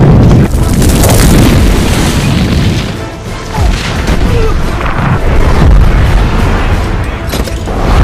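Film battle sound effects: deep booms and fire blasts over a music score, with a brief lull about three seconds in.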